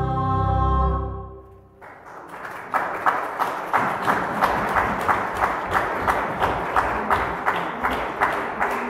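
A women's choir with keyboard holds its final chord, which dies away about a second and a half in. Applause follows at once and keeps going, with single claps standing out a few times a second.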